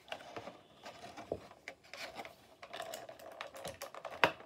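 Toy packaging being handled and opened by hand: irregular scraping and rubbing with scattered small clicks, the sharpest near the end.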